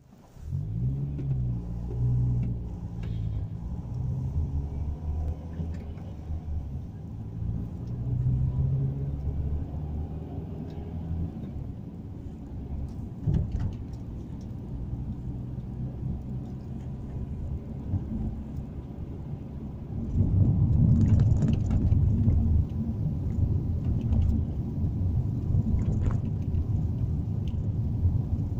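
A car driving, heard from inside the cabin: a low rumble of engine and road noise. In the first half an engine hum rises and falls in pitch. About two-thirds of the way through the rumble turns louder and rougher.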